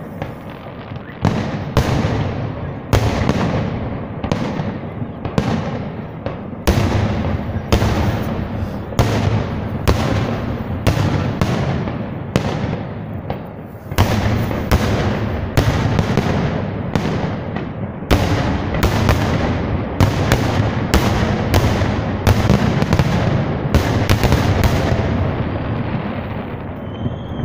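Aerial fireworks shells bursting in quick succession, about one bang a second over a low rumble of echoes, dying away near the end.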